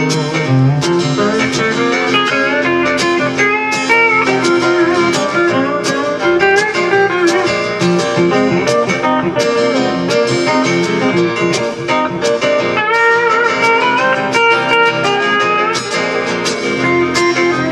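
Pedal steel guitar playing an instrumental break in a country song, its notes gliding and bending between pitches, over a live band's steady backing with a regular beat.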